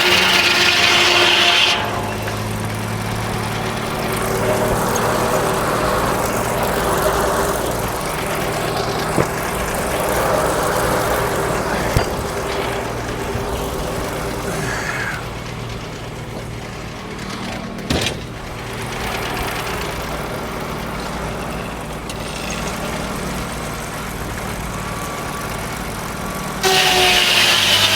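Frick circular sawmill: the blade is cutting through a log with a loud hiss, stops cutting about two seconds in, and runs free with its drive engine humming steadily. A couple of sharp clunks follow, and a new cut starts loudly near the end.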